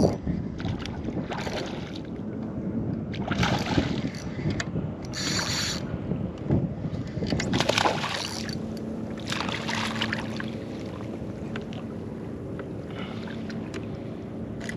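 Water and wind noise on a fishing kayak, coming in a series of short surges every second or two, with wind on the microphone.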